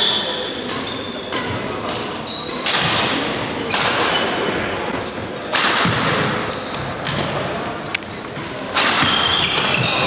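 Badminton play: thuds from footwork and shuttlecock strikes, with short high squeaks, over background voices.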